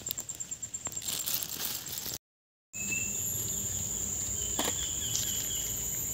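Insects calling: a rapid, high-pitched pulsing chirp, then, after a half-second dropout about two seconds in, a steady high-pitched drone, with a few light clicks and rustles.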